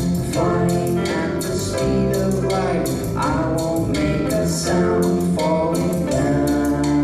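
Live band playing a pop song: a steady drum beat with cymbals over bass and sustained chords.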